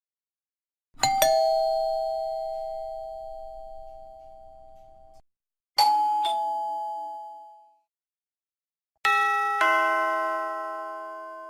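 Three different doorbell ding-dong chimes, one after another: each strikes a higher note then a lower one and rings down. The first rings for about four seconds before cutting off, the second dies away in about two seconds, and the third is brighter and fuller.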